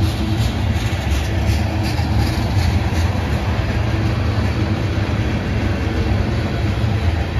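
Freight train's tank cars and covered hoppers rolling past: a steady rumble of steel wheels on rail, with light, evenly spaced wheel clicks in the first few seconds.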